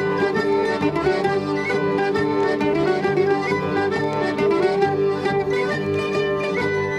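Instrumental traditional Gascon folk music playing steadily, with no singing.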